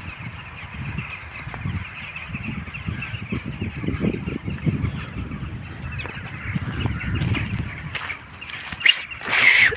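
A huge flock of rooks calling all at once, a dense, unbroken chorus of cawing. Near the end comes a short, loud rush of noise.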